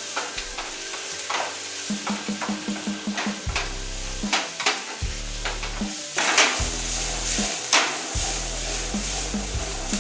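Shrimp and vegetables sizzling in a hot wok, stirred and scraped against the pan with a wooden spatula in quick strokes. A few louder sizzling swishes come in the second half.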